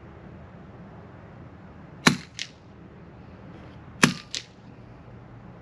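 Two suppressed shots from a Savage B22 F .22LR bolt-action rifle firing subsonic rounds, about two seconds apart. Each is a sharp crack followed a fraction of a second later by a fainter second crack.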